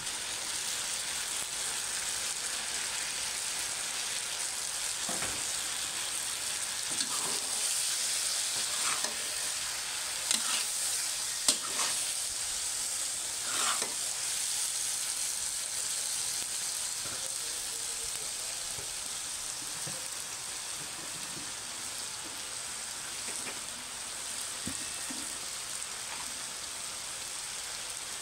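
Chopped jackfruit frying in a metal wok with a steady sizzle. A spatula stirring it scrapes and knocks against the pan a few times, mostly in the middle.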